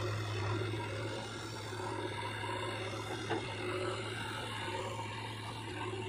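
JCB 3DX backhoe loader's diesel engine running steadily under load while the backhoe arm digs, with a single light knock about three seconds in.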